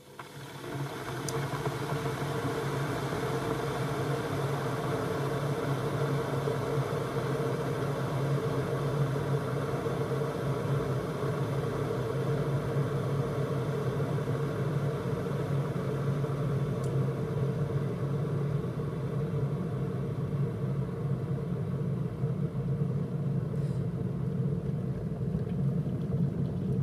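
Electric kettle heating freshly added cold water just after being switched on: a steady low rumble with a hiss, which swells up within the first second and then holds level.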